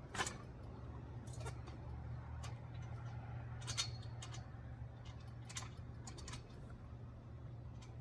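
Metal hardware being handled while trampoline leg bolts and nuts are fitted by hand: irregular sharp clicks and clinks, about a dozen spread over several seconds, over a steady low hum.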